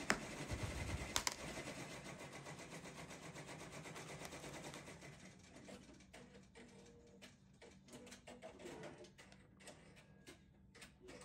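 Two sharp clicks as a clear plastic storage box's latches snap open, one at the start and one about a second later, followed by faint clicks and taps of small plastic tools and an oil bottle being handled. A steady background sound underneath fades out about halfway through.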